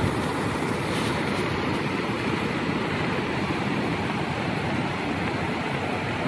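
Floodwater rushing down a flooded street in a steady, even rush.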